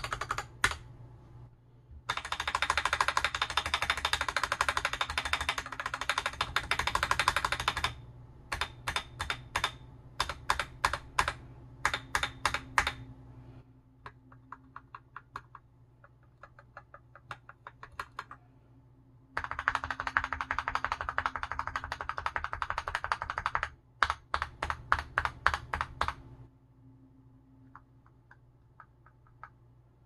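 Typing on a Keycool KC84 mechanical keyboard with lubed Gateron KS9 Black linear switches, a steel plate, an ABS case and pudding keycaps. Long runs of rapid typing alternate with runs of separate keystrokes, some of them faint.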